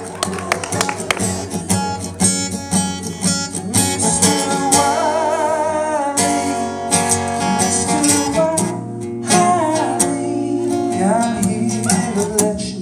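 Acoustic guitar strummed live, with a voice singing the melody from about four seconds in.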